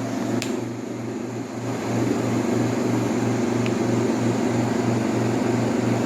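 1958 Carrier window air conditioner running in cooling mode just after its compressor starts: a steady compressor hum with the fan running, growing louder about two seconds in. A short click sounds about half a second in.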